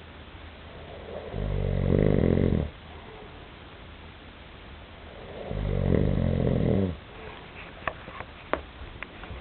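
A sleeping dog snoring: two long, low snores about four seconds apart, each lasting over a second, followed by a few small clicks near the end.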